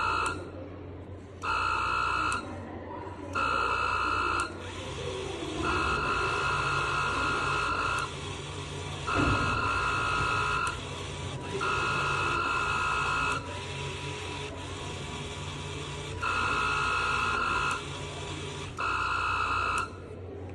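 Electronic buzzer sounding in about eight uneven beeps, each a steady high tone lasting one to two seconds, over a low steady hum.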